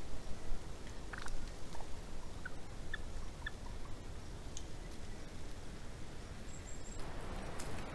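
Wild turkeys giving a handful of short call notes, about five in the first few seconds, over a steady low background rumble.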